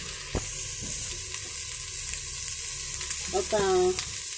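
Steady hiss of food sizzling in hot oil, with one light knock about half a second in.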